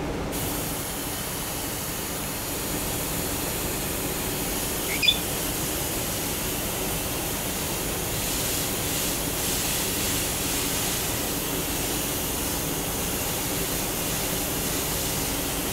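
Garden hose spraying water over a parrot to cool it: a steady hiss that starts just after the beginning and keeps on. A single short bird chirp about five seconds in.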